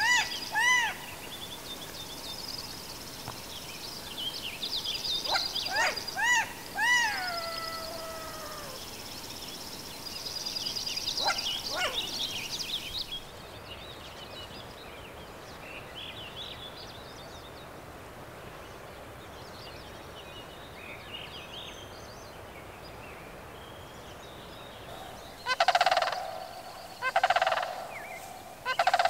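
Sandhill crane giving loud rattling calls, three of them in the last few seconds. Earlier, songbirds trill high and another bird gives repeated short down-slurred calls over the first dozen seconds, with a quieter stretch in between.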